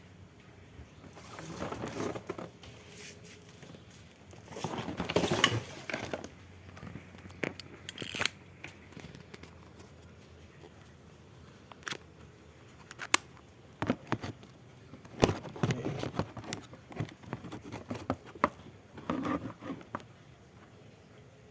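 Irregular handling noises: bursts of rustling and crinkling with scattered sharp clicks and knocks, the loudest bursts around five and fifteen seconds in.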